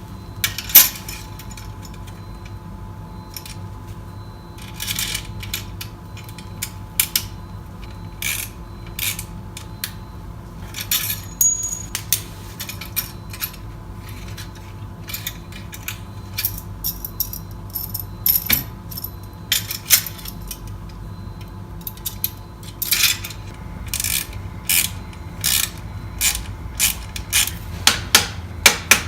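Metal tools and exhaust parts clinking and knocking now and then while the pipes are worked into place on the motorcycle. Near the end the knocks turn into a quick run of taps, about three a second.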